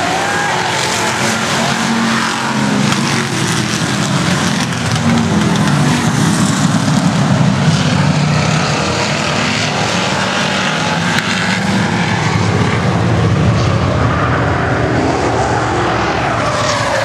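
A pack of stock race cars going by at racing speed, their engines loud and sustained, swelling a little about halfway through as the field passes.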